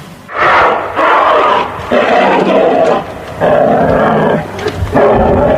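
A large wild animal roaring and growling: four long, rasping calls of about a second each, with short breaks between them.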